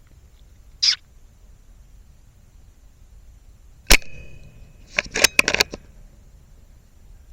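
A sub-12 ft-lb air rifle shot, a single sharp crack with a brief ringing tail, about four seconds in. About a second later comes a quick run of about five sharp clicks. A short hissing burst comes about a second in.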